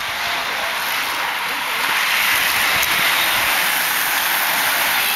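A peloton of racing bicycles sweeping past close by: a hiss of tyres on asphalt and whirring chains and freewheels that builds over the first two seconds, then holds steady.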